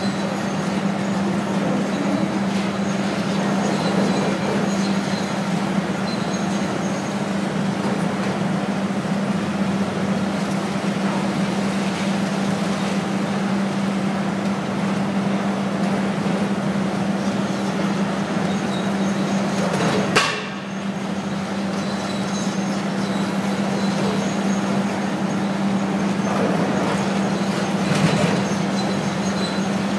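Hydraulic demolition excavator running steadily with a constant low hum, over the rumble and clatter of the building's concrete and brick being torn down. A sharp bang about two-thirds of the way through, and a smaller one near the end.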